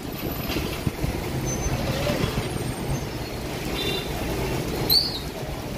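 Slow, jammed road traffic: the engines of cars, auto-rickshaws and motorbikes running at low speed, with a short high-pitched squeal about five seconds in.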